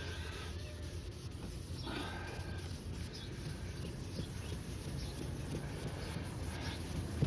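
Hand wet-sanding of a plastic car headlight lens with 1000-grit sandpaper: steady scrubbing of paper on the wet lens.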